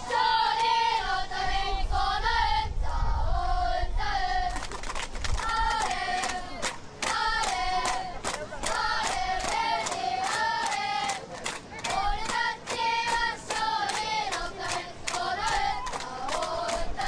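Crowd of children in the stands chanting a cheer in unison, high voices in short repeated phrases, with rhythmic hand-clapping joining in about five seconds in.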